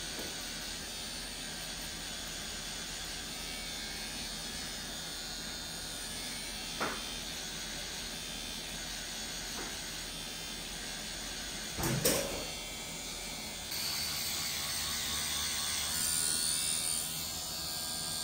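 Pen-style rotary tattoo machine running steadily while tattooing skin, with a short knock about seven seconds in and a louder clatter about twelve seconds in.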